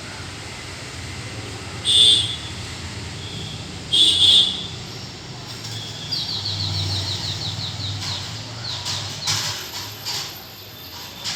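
Plum-headed parakeets calling in an aviary: two loud, shrill calls about two seconds apart, then a fast run of short, repeated chirps and a few rustling noises, over a low steady hum.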